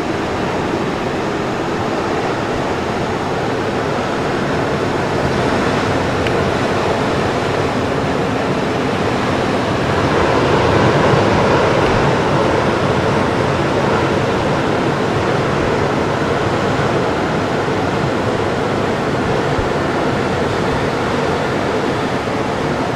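Steady rushing sound of ocean surf, swelling a little about ten seconds in.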